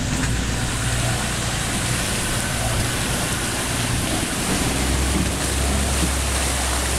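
Vehicle engine running with a steady low rumble under an even hiss.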